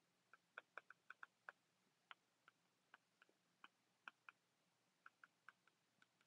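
Faint, irregular clicks of a stylus tip tapping on a tablet's glass screen during handwriting, about twenty quick taps with no steady rhythm.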